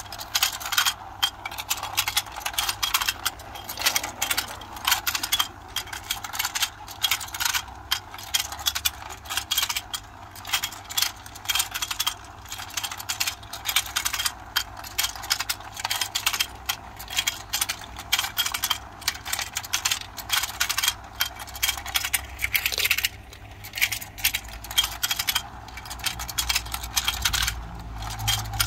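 A toy fishing game running, its rotating plastic board and the fish mouths opening and shutting giving a fast, continuous clicking and rattling of small plastic parts.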